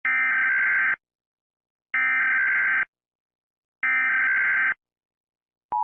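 Emergency Alert System SAME header: three bursts of digital data tones, each about a second long with about a second's pause between. The steady two-tone attention signal begins right at the end.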